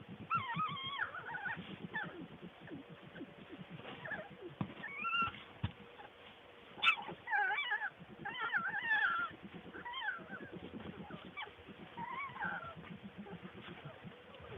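Skunk giving a run of short, high squealing calls that wobble in pitch, with short gaps between them and a faint steady hum underneath.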